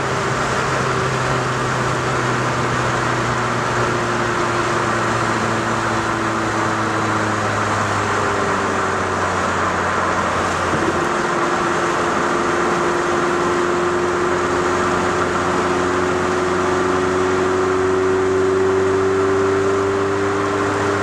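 Opel Kadett GSI's 2.0-litre 8-valve four-cylinder engine, with a tuned exhaust, heard from inside the cabin while cruising, over steady tyre and road noise. The revs hold steady, then climb slowly over the second half.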